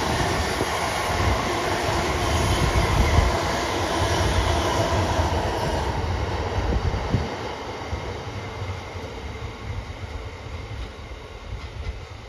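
Freight train's box wagons rolling past: a steady rumble and clatter of wheels on the rails. It eases after about six seconds and fades as the end of the train goes by.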